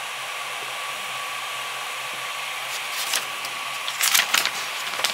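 Creality Ender 3D printer's hotend cooling fan running steadily with a faint whine. From about three seconds in, a sheet of paper scratches and rustles as it is dragged under the nozzle, loudest about four seconds in. The nozzle is set too tight and jams the paper.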